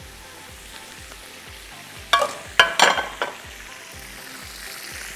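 Oil sizzling steadily in a frying pan. About two seconds in comes a quick cluster of loud metal clinks with a short ring, from a utensil working in the pan as the fried potatoes are lifted out.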